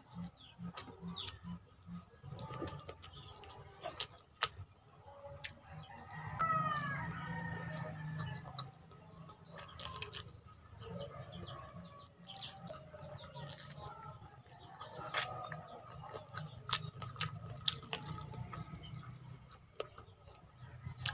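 Mouth sounds of eating adobo chicken feet: wet chewing and sucking with many small sharp clicks. A rooster crows in the background about six seconds in.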